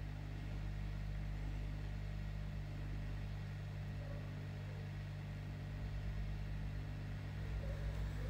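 Hot air rework station blowing: a steady fan hiss over a low hum, heating a thick circuit board so the chip can be soldered.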